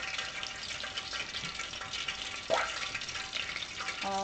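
Vietnamese egg rolls (chả giò) deep-frying in a pan of hot oil: a steady crackling sizzle, with a brief louder sound about two and a half seconds in.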